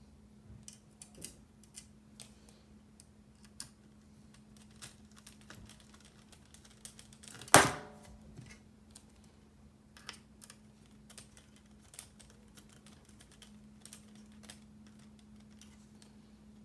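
Scattered light clicks and taps from mechanical keyboard parts being handled and fitted, with one loud knock about seven and a half seconds in, over a steady low hum.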